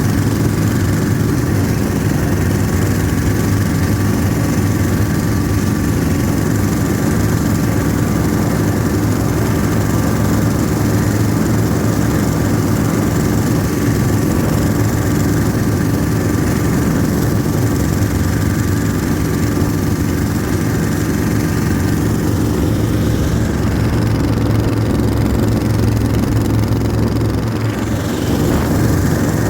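Ockelbo diesel snowmobile's Yanmar diesel engine running steadily under way, with a thin steady whine above the engine note.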